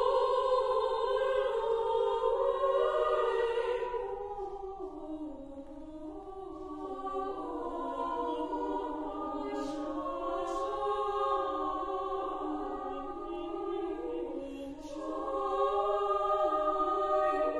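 Women's chamber choir singing unaccompanied in sustained chords; the sound softens about four seconds in and swells again near the end.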